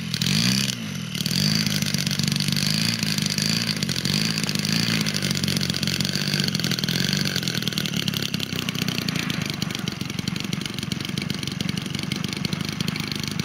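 DLA 112cc twin-cylinder two-stroke gasoline engine of a large RC aerobatic plane idling on the ground, its pitch wavering slightly.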